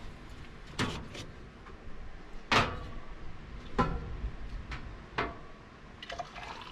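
Clicks and knocks of a Jetboil camp stove being taken apart by hand: the insulated cooking cup unclipped from its burner and fuel canister and the plastic lid pulled off. About six sharp knocks, the loudest about two and a half seconds in.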